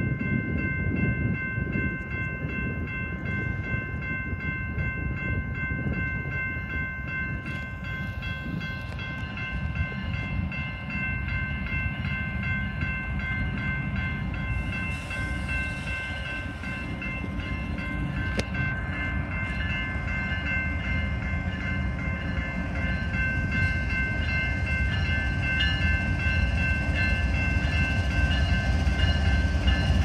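Grade-crossing warning bell ringing steadily over the low rumble of a diesel freight locomotive approaching the crossing, the engine and wheel noise growing louder near the end.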